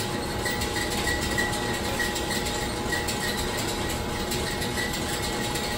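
Steady hum and noise of running laboratory machinery, with a faint high tone pulsing about twice a second.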